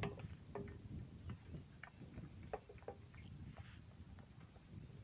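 Faint, scattered small clicks and taps as a plastic bottle of hand sanitizer is handled and tipped into a motorcycle's open fuel tank, over a low steady rumble.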